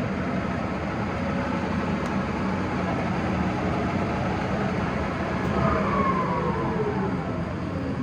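Monarch engine lathe running with a steady gear whine and rumble; from about five and a half seconds in its pitch falls as the spindle slows down.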